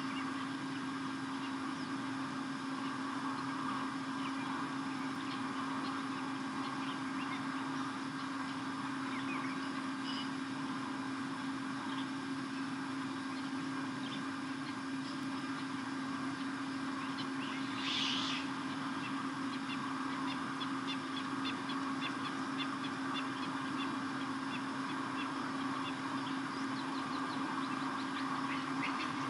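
Outdoor wildlife-camera ambience: a steady low electrical hum under faint, scattered short bird calls, which grow more frequent in the last third, with one brief louder call about eighteen seconds in.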